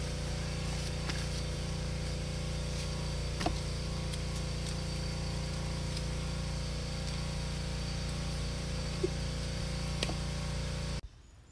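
Car engine idling steadily, a low even hum with a few faint ticks, cutting off abruptly near the end.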